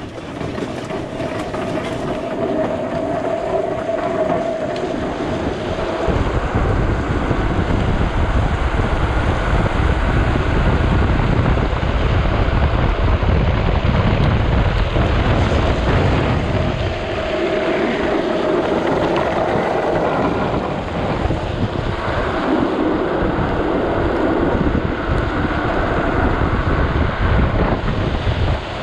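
Drift trike wheels rolling at speed down wet asphalt, a continuous rumble and hiss with wind on the microphone. It grows louder over the first several seconds as the trike picks up speed.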